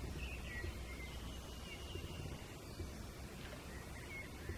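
Low, steady rumble of a passing river cruise boat's engine, with a few short bird chirps over it.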